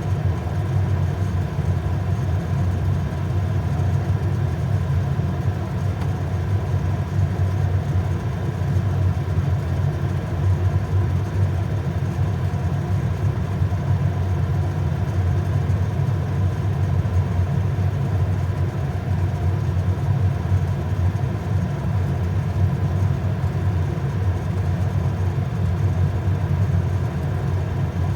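Japanese domestic water heater (kyutoki) running with a steady low drone and a faint steady higher tone, the abnormal noise (ion) the unit is making.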